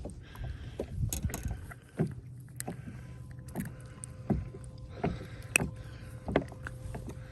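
Scattered knocks and clicks from handling a landed fish and tackle in a fishing boat, over a steady low hum. A faint steady tone comes in about three seconds in.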